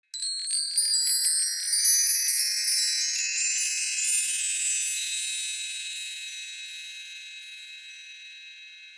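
High-pitched metal chimes swept in a fast run of tinkling strikes for about three seconds, then ringing on and slowly fading away.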